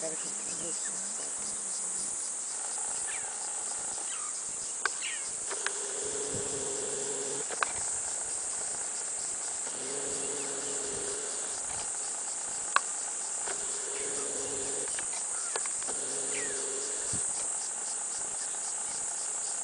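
Steady high-pitched insect chorus with a fast pulsing shrill. It is broken by a few sharp clicks, while a low hum comes and goes.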